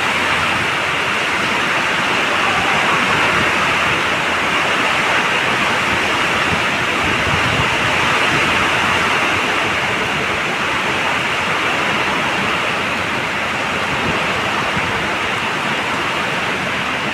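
Heavy rain falling in a steady, loud downpour.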